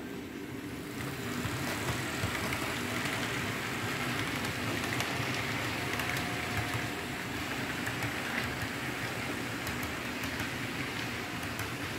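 Model train running on layout track: a Lima model of NS 1300-class electric locomotive 1314 hauling passenger coaches, giving a steady rolling noise of wheels on the rails. It grows a little louder about a second in, with a few faint clicks later on.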